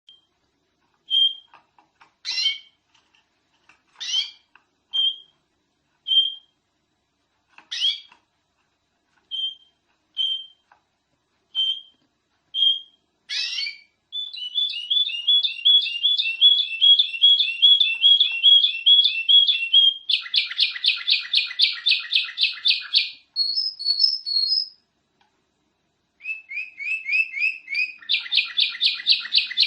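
Domestic canary singing: separate short chirps about once a second, then fast rolling trills of rapidly repeated notes, broken by a brief pause near the end before the trilling resumes.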